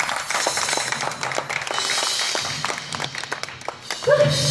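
Audience applauding, with many separate claps. Near the end a held note and the band's bass come in as music starts up.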